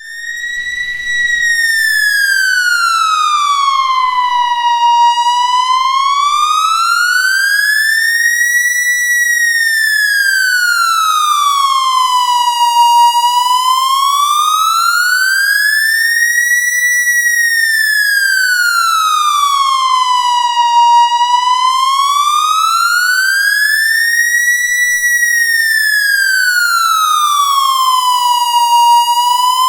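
Police siren in wail mode, its pitch sliding smoothly up and down in a slow, even cycle about every eight seconds.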